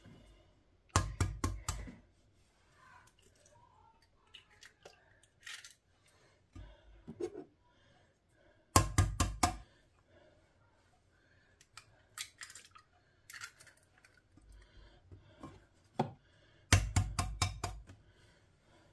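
Eggs being cracked: three quick runs of sharp taps against a hard edge, about eight seconds apart, one run per egg, with faint small clatters in between.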